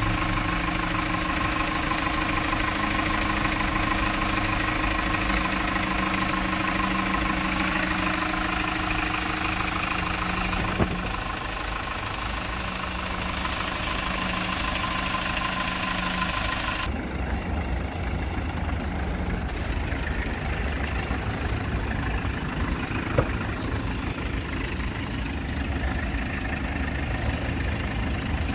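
Kia Bongo III 1.2-ton truck's engine idling steadily. Partway through, it turns duller and lower, heard from inside the cab instead of at the open engine bay.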